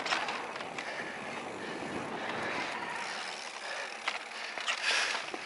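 Electric mountain bike riding down a dirt trail: steady tyre and rolling noise, with a brief louder swell of noise near the end.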